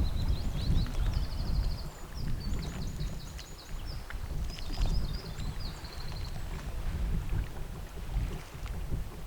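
Wind buffeting the microphone in an uneven low rumble. Over it, a small songbird sings high chirps and quick trills, stopping about two-thirds of the way through.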